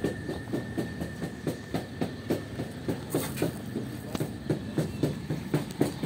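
Hooves clopping in a steady walking rhythm, about four strikes a second.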